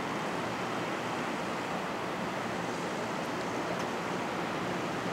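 Steady outdoor background noise, an even rushing hiss with no distinct events.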